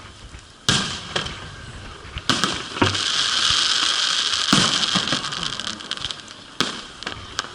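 Fireworks display: several sharp bangs of shells bursting, with a long crackling, hissing shower of effects through the middle.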